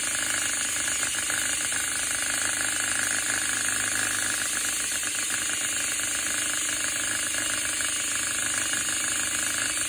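DeWalt cordless drill running steadily, spinning a wooden spoon through egg whites in a glass bowl.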